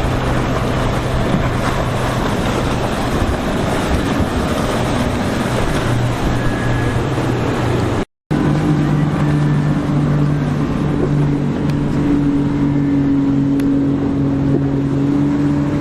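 Motorboat engines running with a steady drone over a rush of water and wind. The sound cuts out for a moment about halfway, then a slightly higher, stronger engine drone carries on.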